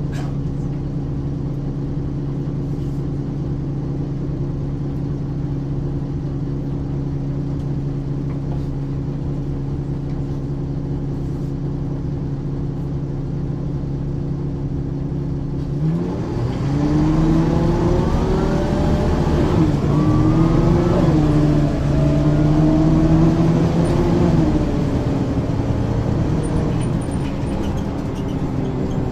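1994 Ikarus 435 articulated bus with a ZF gearbox: its diesel engine idles steadily, then a little over halfway through it revs up as the bus pulls away. The pitch rises and dips several times with the gear changes, then eases back to a steady, lower running near the end.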